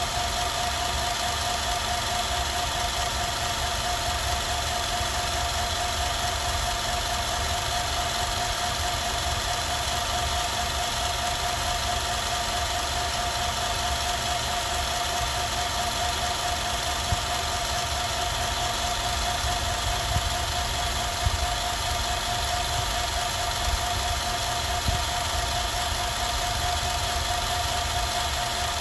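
Film projector running steadily: an even mechanical whir with a constant pitched hum and a low, fine clatter from the film transport, with a few light clicks in the second half.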